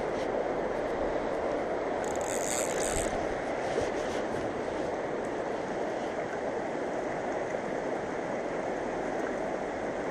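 Steady rush of a fast-flowing mountain river, an even wash of water noise, with a short higher hiss about two seconds in.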